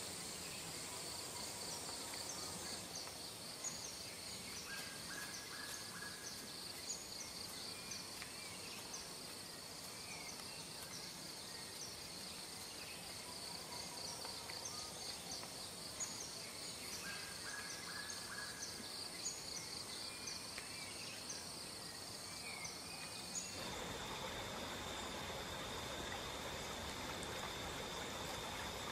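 Tropical rainforest ambience: insects trilling steadily at several high pitches with repeated short chirps, and a few brief bird calls. About three-quarters of the way through it changes abruptly to a single steady insect drone over the rush of running water.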